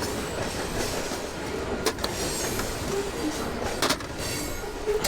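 Rummaging through scrap in a dumpster: two sharp knocks of items being moved, one about two seconds in and one near four seconds, over a steady rumbling background noise.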